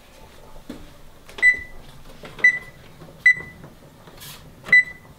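Electric range's oven control panel beeping as its keys are pressed to set the broiler to high: four short, single-pitched beeps at uneven intervals.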